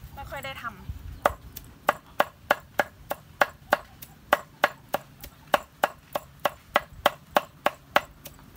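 Knife chopping vegetables on a cutting board, steady even strokes about three or four a second, starting about a second in. The vegetables are being cut up for pickling.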